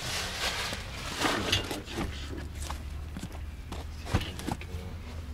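Cardboard boxes of waste paper being lifted and shifted, with rustling, shuffling footsteps and scattered knocks, one sharper knock about four seconds in.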